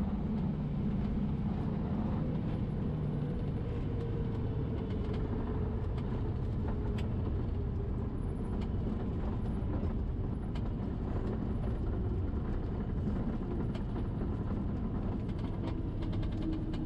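Cessna 172's engine at idle with wheel and airframe rumble during the landing rollout, heard inside the cabin. A faint tone slowly falls in pitch as the plane slows, with scattered light clicks.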